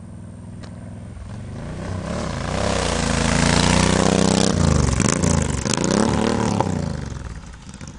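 Suzuki LC1500 cruiser's V-twin engine as the motorcycle rides up, passes close by and rides away: the engine note builds to its loudest at the pass, about four seconds in, then fades.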